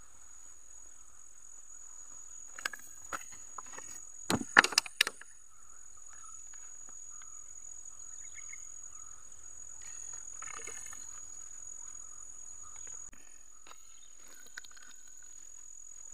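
Steady high-pitched chorus of insects in the grass, with a cluster of sharp clicks and rustles of close handling between about three and five seconds in, the loudest of them about four and a half seconds in.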